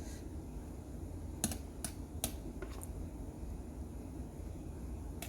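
A few light clicks and taps from kitchen utensils while butter is spread on a bun, about four in a second and a half, over a low steady hum.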